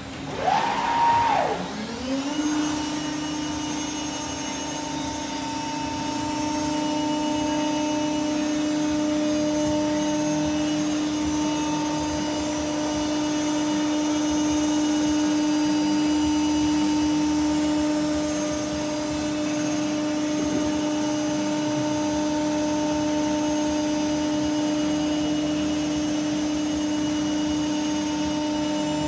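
Master Wood Project 317 CNC router's spindle motor spinning up with a rising whine in the first couple of seconds, then running steadily at speed with a constant hum.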